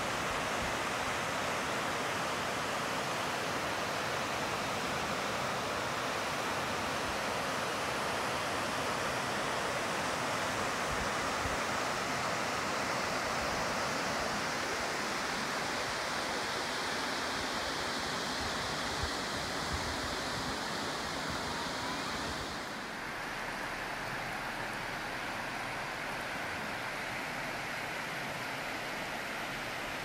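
Rushing water of Awamata Falls, a broad cascade sliding over bedrock, and of the river rapids below it: a steady, even roar of falling and flowing water. About 22 seconds in it turns slightly quieter and duller.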